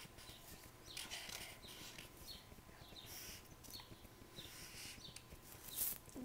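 Felt-tip marker squeaking and scratching on paper in a run of short strokes as figures are written, faint, with a louder stroke near the end.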